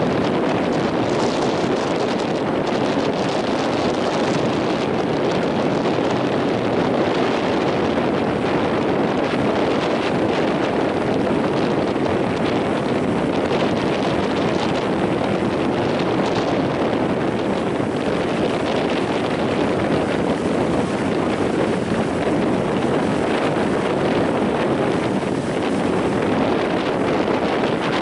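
Strong wind blowing across the microphone over the steady roar of surf breaking at a river mouth.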